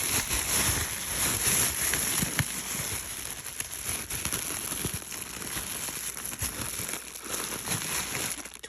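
A bag crinkling and rustling steadily as it is handled and written on, with small clicks scattered through it.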